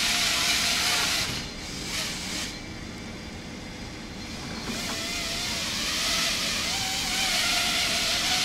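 Small FPV quadcopter carrying a stripped-down GoPro hovering low: its propellers whir with a wavering motor whine that rises and falls with the throttle. It dips about a second in and picks up again from about five seconds in.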